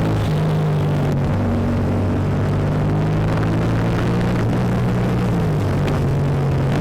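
Motorcycle engine running steadily with a low, even drone, its pitch shifting up or down a few times as the throttle changes.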